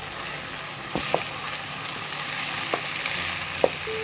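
Oil and sauces sizzling steadily in a hot non-stick wok as cooked rice is tipped in from a steel bowl, with a few sharp knocks against the pan.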